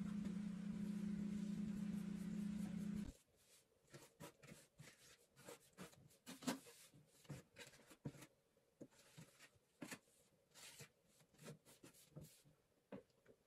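A steady machine hum that cuts off suddenly about three seconds in, followed by irregular light clicks, taps and scrapes of something being handled.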